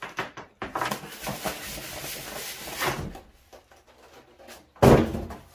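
Polystyrene foam packing insert scraping and rustling against a cardboard box as it is pulled out, with many small clicks. Near the end comes a single loud thump.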